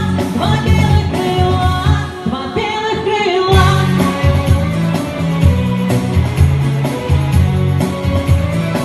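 Pop song playing: a singing voice over a rhythmic bass line, with the voice dropping out about three and a half seconds in while the bass and other instruments carry on.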